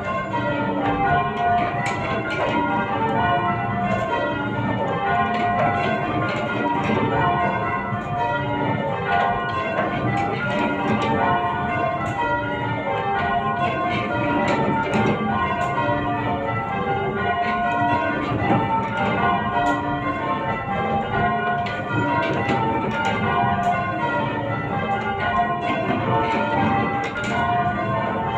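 Change ringing on a ring of eight church bells: an unbroken, even run of bell strokes following one another, each ringing on into the next.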